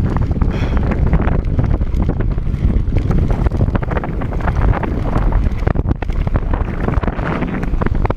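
Wind buffeting the camera microphone on a fast-moving electric mountain bike, with the rattle and knocks of the bike running over a bumpy dirt trail.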